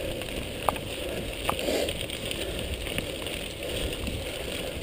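Mountain bike tyres rolling over a gravel track: a steady gravelly rushing noise, with a few sharp clicks and rattles from the bike.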